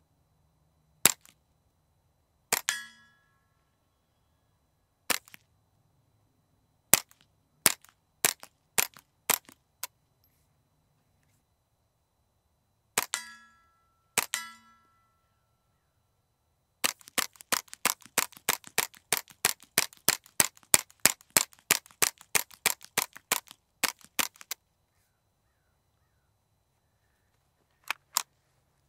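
Suppressed .22 LR semi-auto rifle (a Ruger 10/22 with an AB Suppressor Little Bird) firing, with sharp, quiet cracks. Single shots come at uneven intervals, a few of them followed by the ringing of a hit steel target. Then a rapid string of about four shots a second runs for around seven seconds, with two more shots near the end.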